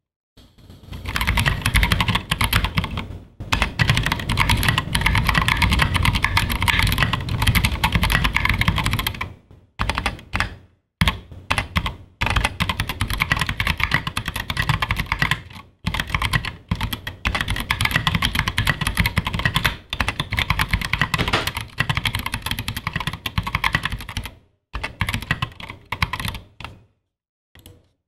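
Typing on a custom 60% mechanical keyboard with Zealios 67g tactile switches, an aluminium case and plate, and SA-profile keycaps. Keystrokes come in a dense stream in runs of several seconds, with a few short pauses, and stop just before the end.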